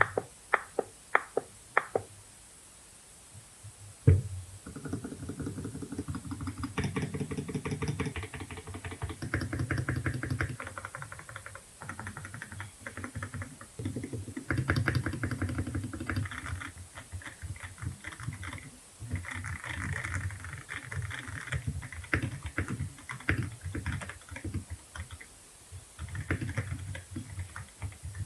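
Typing on a GMK67 mechanical keyboard kit fitted with white plastic keycaps. It opens with a few separate keystrokes and a single sharp knock, then runs into fast, continuous typing in bursts with short pauses, the keys giving a deep clack.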